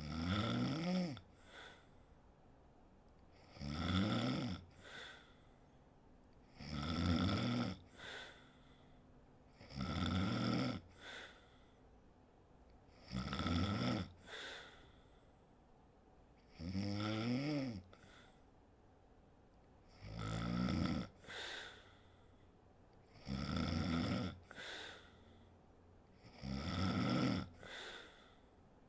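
A woman snoring in her sleep: nine regular snores, one about every three and a half seconds, each followed by a short, quieter second sound.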